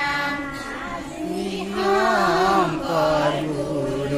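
Children singing dihanam, an Assamese devotional group chant: a slow melody whose pitch bends and wavers, with no drumming heard.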